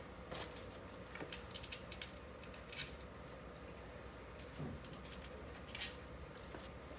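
Faint, scattered clicks and taps of small metal hardware being handled: nuts and bolts picked up and nuts put on the bolts by hand, with a steady faint hum behind.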